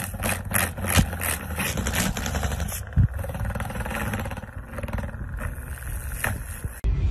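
Small electric desk fan running: a steady low motor hum and whir of the spinning blades. A quick run of sharp ticks comes over the first couple of seconds, with a few more later, and the sound cuts off abruptly near the end.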